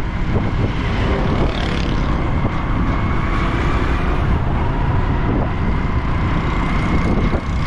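Motorcycle engine running steadily while riding, with road and wind noise and a faint steady whine.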